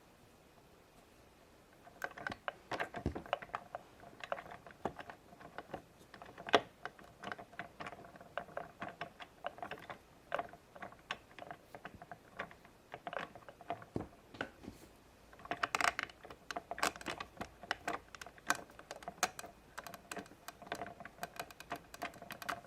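Hands working Play-Doh and handling small plastic toy figures: irregular small clicks, taps and soft handling noises, starting about two seconds in.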